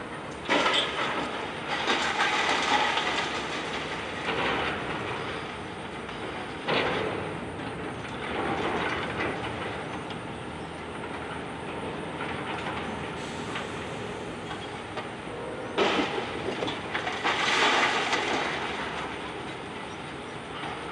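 Wrecking ball demolition of a brick and concrete building. There are sudden crashes about half a second in, around seven seconds and around sixteen seconds, each followed by a few seconds of clattering, tumbling rubble.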